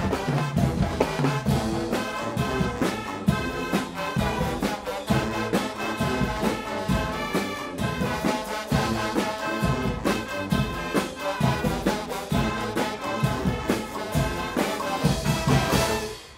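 Guggenmusik brass band playing loudly: trumpets, trombones, euphoniums and sousaphones over a drum kit with crashing cymbals and a driving beat. The piece stops abruptly near the end.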